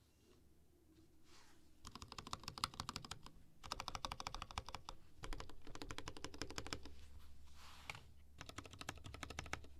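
Fast typing on a 60% mechanical keyboard with unlubed KS3 black linear switches in an aluminium plate, with HK Gaming keycaps, making rapid clacking keystrokes. The typing starts about two seconds in and runs in quick bursts, with a short pause a little before the end.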